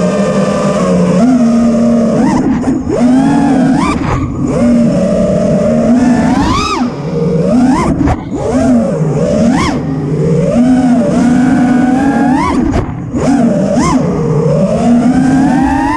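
FPV freestyle quadcopter's four brushless motors (Ethix Mr Steele Stout 2306, 1750KV, on 6S) and propellers whining, the pitch swooping up and down sharply as the throttle is punched and chopped through manoeuvres, with a long rising whine near the end.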